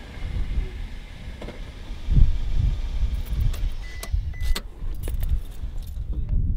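Suzuki hatchback's engine running with a low rumble that swells briefly about two seconds in, then keys clicking and jingling in the ignition, with two short high beeps in between.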